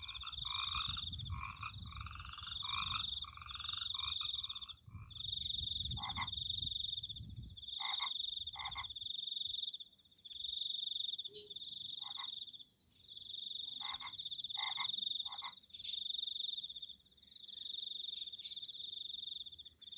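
A chorus of frogs calling: high trilling calls about a second long, repeated over and over with short gaps, with lower croaks overlapping in the first few seconds and scattered short croaks after that.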